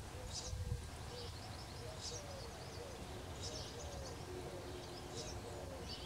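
Garden birdsong: short high chirping phrases recur about every second and a half, over low, short cooing notes.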